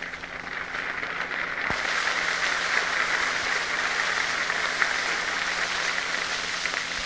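Large open-air crowd applauding. It swells over the first couple of seconds, then holds steady, heard on an old recording with a steady low hum beneath it.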